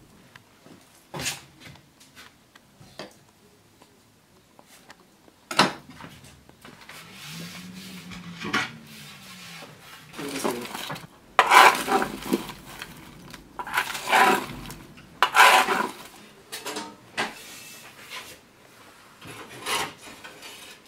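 Embers and ash being raked across the floor of a wood-fired bread oven with a long-handled rake, in irregular scraping strokes. A few sharp knocks come first, and the scraping grows loudest about halfway through.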